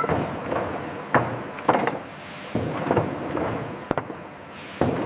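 A run of irregular knocks and clattering hits, about half a dozen at uneven spacing, over steady industrial background noise.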